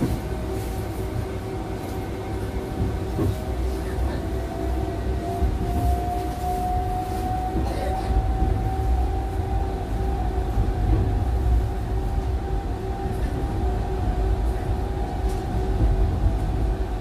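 Tram running along its rails, heard from inside the car: a steady low rumble of wheels on rail with a constant electrical hum, and a motor whine that rises slightly in pitch from about four to eight seconds in as the tram picks up speed. A few light knocks come from the running gear.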